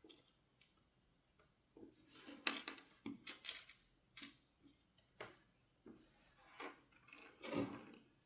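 Small, irregular clicks, taps and short scrapes of a Kailh Choc low-profile keyboard switch and small tools being handled, with a somewhat fuller knock about three-quarters of the way through.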